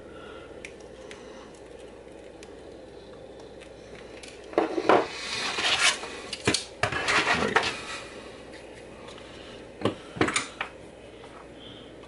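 Hard plastic keyboard parts clicking and clattering as they are handled and moved about, in a busy cluster of knocks about halfway through and two more knocks a little later.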